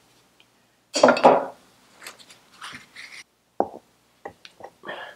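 Metal parts being handled as a Vespa PX flywheel is fitted onto the crankshaft taper: a short clatter about a second in, then scattered small knocks and clicks.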